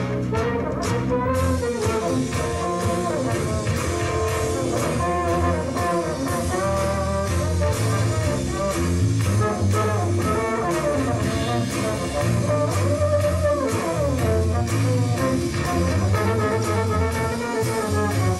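Live jazz-fusion band playing: a melody line over a pulsing electric bass line, keyboards and drums with a steady beat, the drums including electronic pads.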